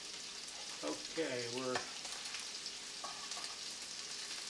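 Prawns and sliced garlic sizzling in olive oil and butter in a stainless steel sauté pan over medium-high heat: a steady frying hiss with fine crackles.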